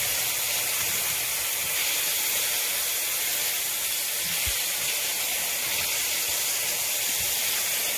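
Rabbit pieces frying in olive oil in a nonstick frying pan, a steady sizzle.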